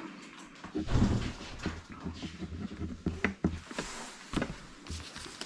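Quiet desk handling sounds: scattered small clicks and knocks of a pen and paperwork while an application form is being filled in.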